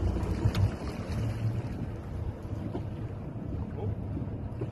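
Wind rumbling on the microphone aboard a fishing boat, with a couple of faint clicks.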